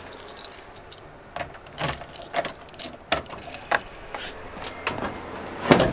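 Car keys on a carabiner keyring jangling and clicking in the ignition as the key is turned to the on position without starting the engine. A louder knock comes near the end.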